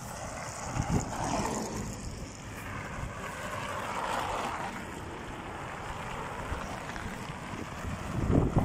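Cars passing on the road one after another, tyre and engine noise swelling and fading as each goes by. Wind buffets the microphone near the end.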